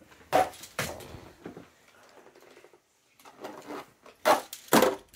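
Plastic toy monster trucks clacking against plastic ramps and launcher track. There are two pairs of sharp knocks about half a second apart, one pair near the start and one near the end, with faint rattling between them.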